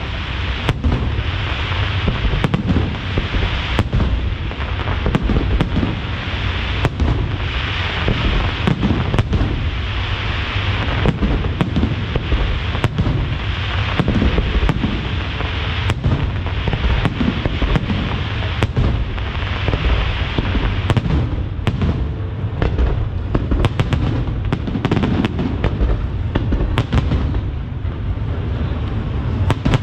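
Aerial firework shells bursting in quick succession over a lake: many sharp bangs over a continuous low rumble of booms.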